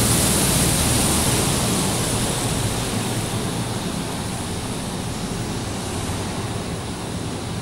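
Go-karts running on an indoor track, heard as a steady rushing wash of engine noise echoing off the concrete of an enclosed parking garage, slowly fading.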